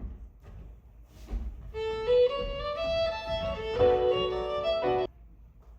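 Violin playing a short phrase that climbs note by note, then several notes sounding together, before it cuts off suddenly about five seconds in.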